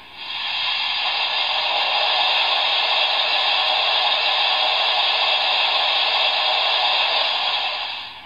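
Steam hiss from the sound decoder of a Trix Union Pacific Challenger model locomotive, played through its small speaker. It swells in at once, holds steady for about eight seconds and fades out near the end.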